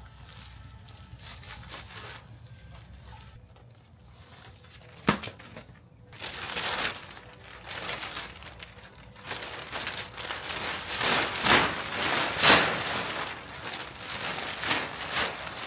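Plastic sheeting crinkling and rustling as it is handled, in irregular bursts that grow louder after about six seconds, with one sharp click about five seconds in.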